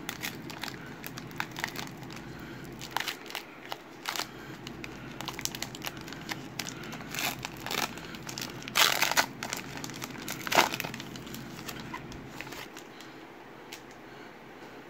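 Foil wrapper of a 2020 Legacy football card pack crinkling and tearing as it is worked open by hand: many sharp crackles, loudest in a burst a little past the middle, fading near the end.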